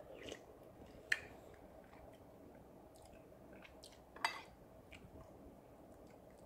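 Metal spoon scooping seaweed and tofu soup from a ceramic bowl: quiet wet squishing with two sharp clicks of the spoon against the bowl, about a second in and again about four seconds in.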